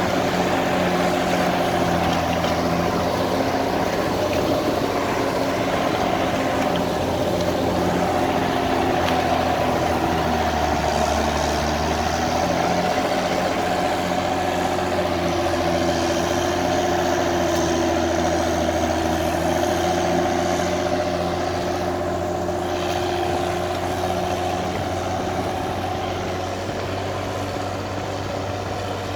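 Case 1694 tractor's diesel engine running steadily under load while pulling a four-furrow plough, growing slightly quieter near the end.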